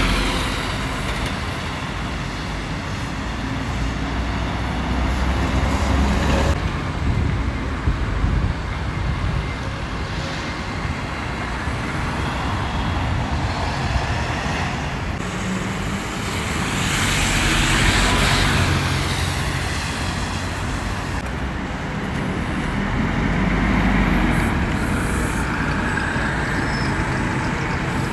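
Double-decker buses (Alexander Dennis Enviro400s) moving off and passing close by in street traffic, their engines rumbling low with tyre and road noise. The sound swells twice as vehicles go past.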